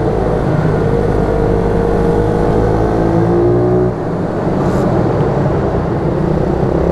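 YCF 88 cc mini moto's small single-cylinder four-stroke engine running under throttle, its note climbing steadily, dipping briefly about four seconds in, then climbing again.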